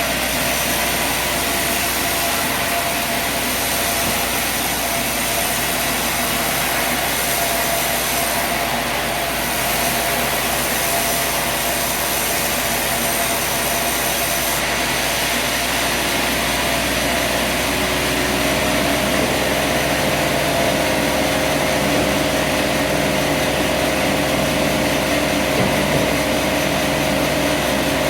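Sawmill running steadily, an even mechanical noise with steady tones. It gets a little louder, with a deeper tone, about two-thirds of the way through.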